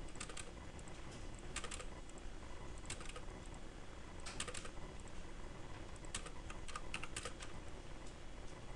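Computer keyboard keys clicking in short, irregular bursts of a few strokes each, as drawing commands are typed in.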